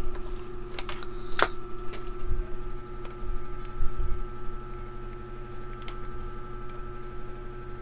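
Scattered light clicks and dull knocks of hands handling test gear and the TV's power cord on the workbench, over a steady electrical hum with a couple of held tones.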